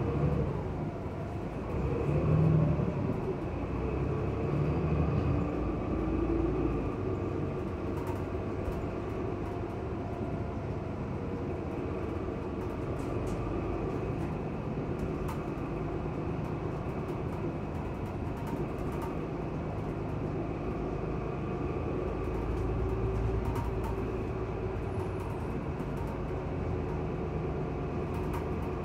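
An MTA city bus running, heard from inside the passenger cabin: a steady low engine and road rumble. A few seconds in, the engine note rises in pitch.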